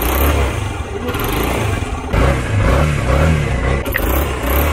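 The newly fitted single-cylinder four-stroke engine of a Suzuki RV125 Van Van running, with its pitch rising and falling as the throttle is blipped about halfway through. It has a light tappet tick but no knocking.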